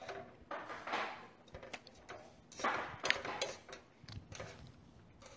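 Eating sounds: noodles slurped from chopsticks in two noisy pulls, about a second in and a louder one near the middle, with short clicks of chopsticks against the pan.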